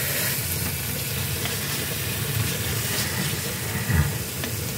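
Chopped, seasoned chicken breast sizzling steadily on a hot flat grill, over a low steady hum. There is a brief low thud about four seconds in.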